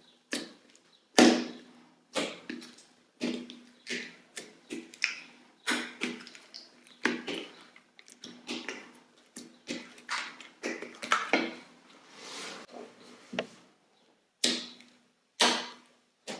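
Slime being poked and squeezed by hand: a string of sharp, wet clicks and pops about once or twice a second, with a softer drawn-out squelch about three-quarters of the way through.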